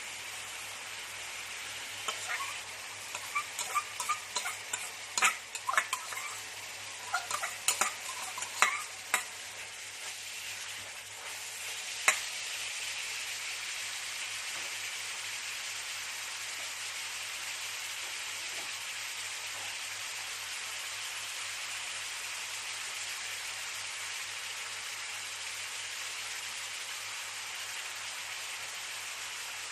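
Kale and crispy pork sizzling as they are stir-fried in a hot pan. A utensil clacks and scrapes against the pan many times in the first ten seconds, with one sharp knock about twelve seconds in. After that the sizzle is steady and a little louder.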